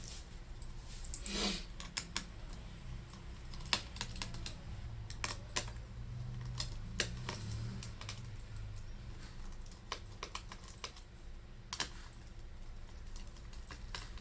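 Scattered light clicks and taps from hands and a tool working on the opened Lenovo Ideapad S145 laptop's plastic and metal parts, with a short scrape about a second in.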